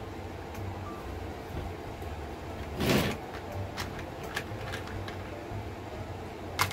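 Wooden beads rattling in a plastic bead organizer as a hand rummages through them: one short loud clatter about three seconds in, a few light ticks, and a sharp click near the end, over a steady low hum.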